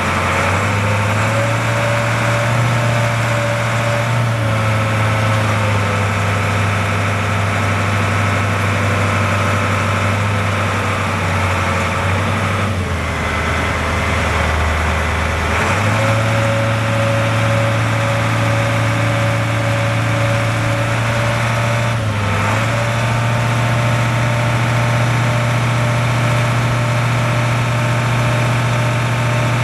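Caterpillar 3208 V8 diesel of a Ford F800 digger derrick truck running at raised speed to drive the hydraulics as the telescoping boom extends. A thin whine follows the engine speed. The engine drops to a lower speed for a few seconds about halfway through, then comes back up, with a brief dip a little later.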